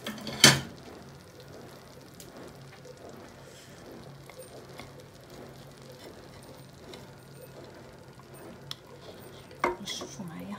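Plates clinking and scraping against a pot as they are lifted off with tongs: one sharp clink about half a second in, a second near the end, and light clicks and scrapes between.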